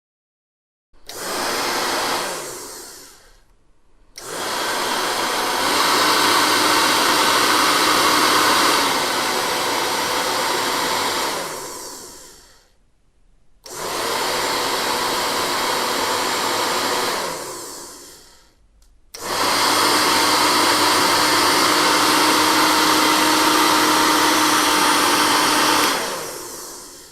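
Hairdryer switched on and run four times at different speed settings, the first and third runs softer, the second and fourth louder. Each run starts abruptly, holds a steady blowing whir, and winds down over about a second after it is switched off.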